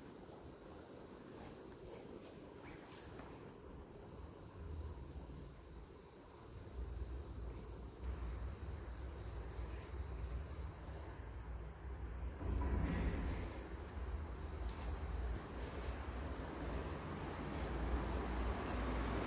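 Crickets chirping, a high, evenly repeating trill. Beneath it a low rumble builds from about a third of the way in and turns noisier in the last third.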